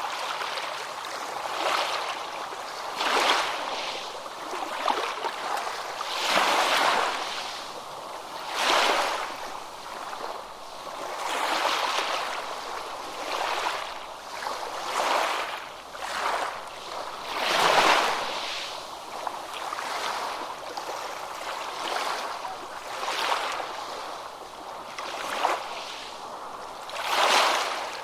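Ocean waves crashing and washing in, with a new swell of surf every one and a half to three seconds; the loudest wave breaks a little past the middle.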